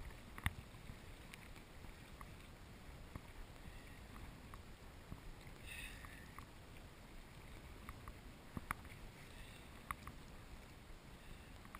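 Sea kayak being paddled through choppy water: water sloshing and slapping around the hull with the paddle strokes, and a few sharp knocks, the loudest about half a second in.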